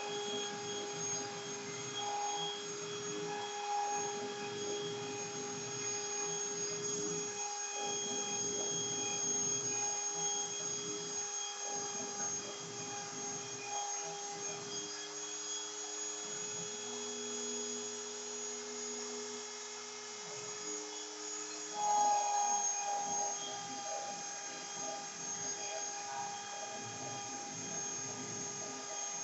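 CNC router spindle whining steadily with a high tone while the bit cuts, the cutting noise rising and falling as it moves. About halfway through, the cutting noise drops away for several seconds, leaving the whine and a lower steady hum, then the cutting comes back louder.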